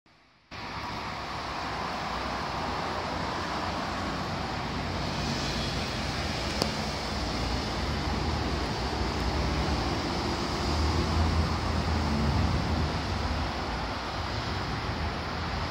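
Steady rushing background noise with a low rumble, and one short click about six and a half seconds in.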